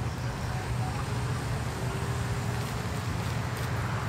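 Steady low background rumble, even in level throughout, with no distinct events standing out.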